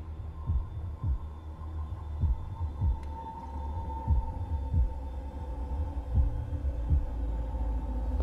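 Film-score tension cue: low, heartbeat-like double thumps about every two seconds over a steady low drone and a thin high held tone.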